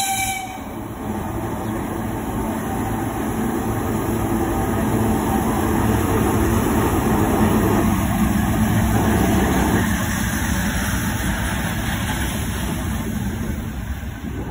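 2TE116 twin-section diesel locomotive passing close by with a works train. The low running of its diesel engines builds to a peak about halfway through as the locomotive goes past. It then eases off into the rolling of the flatcars over the rails. A brief high pitched chirp sounds right at the start.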